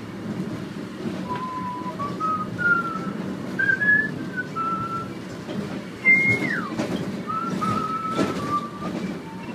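A person whistling a tune: a run of short held notes stepping up and down, a long falling slide about six seconds in, then more notes. Beneath it runs the steady rumble and hum of the airport inter-terminal train in motion.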